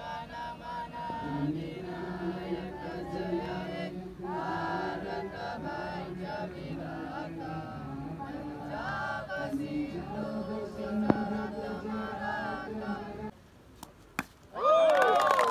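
A group of boys' and men's voices singing an anthem together in long, held notes. The singing ends about two seconds before the end, followed by a short quiet gap and then a loud voice.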